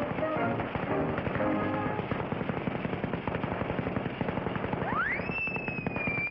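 Cartoon sound effects: a rapid crackle of a lit rocket fuse burning, under orchestral music that fades out in the first couple of seconds. About five seconds in, a whistle sweeps steeply up in pitch and holds high as the rocket takes off.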